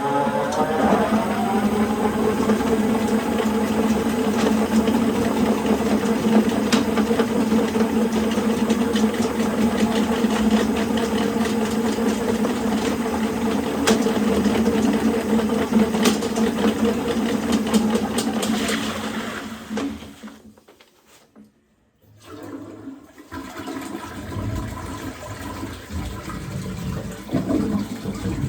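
Electric drain-cleaning machine running as it snakes a sewer cleanout: a loud, steady motor hum that spins up at the start and shuts off about twenty seconds in. A quieter rush of water follows.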